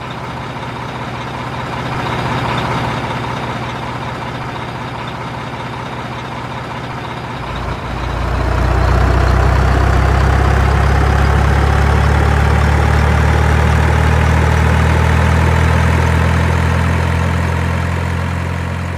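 A big truck's engine sound effect, running steadily, then about eight seconds in growing louder into a deep, steady low rumble, with a faint whine slowly rising in pitch above it.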